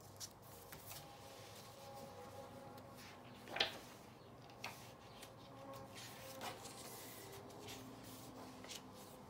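A hardcover picture book being handled and its pages turned: soft paper rustling and scattered light clicks, with one sharper knock about three and a half seconds in.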